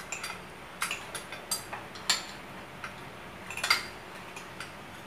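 Metal spoons clinking and scraping against plastic ice cream tubs and a ceramic bowl while people eat: scattered, irregular light clinks, several over a few seconds.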